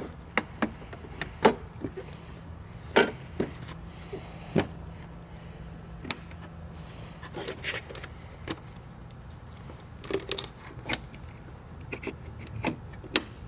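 Scattered sharp plastic clicks and knocks, about a dozen, as a fuel line and an electrical connector are handled and pushed back onto the top of a fuel pump module, over a steady low hum.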